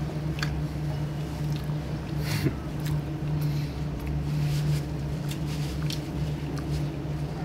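Chewing and wet mouth sounds from eating a soft donut, scattered small smacks and clicks, over a steady low hum.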